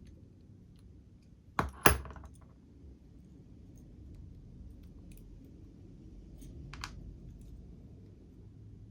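Small metal parts and tools of a model locomotive being handled during reassembly, clicking and clinking: two sharp clicks in quick succession a little under two seconds in, a lighter click near seven seconds, and faint ticks between.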